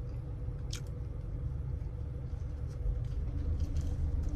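Steady low rumble of an idling car heard from inside the cabin, with a faint steady hum and a single sharp click about three-quarters of a second in.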